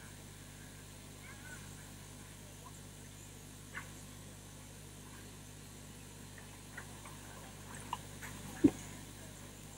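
Quiet ambience of a large ceremony hall: a steady low hum with scattered faint ticks and small rustling sounds, and one short sharp thump near the end.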